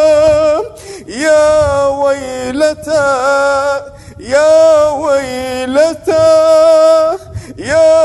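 A man reciting the Quran in melodic tajweed style: long held notes with wavering ornaments, sung in several phrases separated by short breaths.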